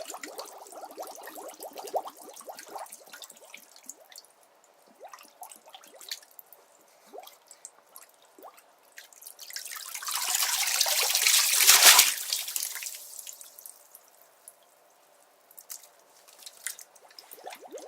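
Bathtub water dripping and lapping in small splashes. A louder rush of moving water swells from about ten seconds in, peaks near twelve seconds, then dies away before the drips return.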